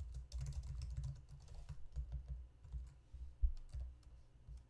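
Typing on a computer keyboard: a quick run of keystrokes, then scattered key presses with one louder stroke about three and a half seconds in.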